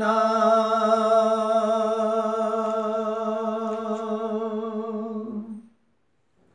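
A man singing unaccompanied holds the long closing note of a line of a Gojri bait, a steady tone with a slight waver. It fades out about five and a half seconds in.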